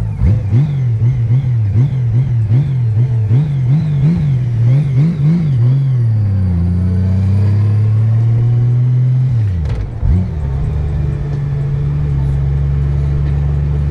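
Honda Gold Wing GL1800 flat-six engine revving up and down about twice a second, then holding a steady pitch as the bike gets under way. About ten seconds in, the pitch drops briefly and comes back, as with a gear change.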